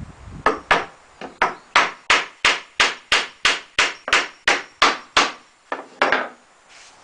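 Hammer driving nails into pallet-wood boards: a steady run of sharp blows at about three a second, then two last blows after a short pause.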